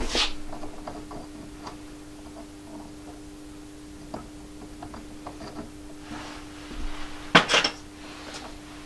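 Small metal parts and tools clinking against each other as they are handled at a machine, with the loudest pair of clinks about seven and a half seconds in, over a steady low electrical hum.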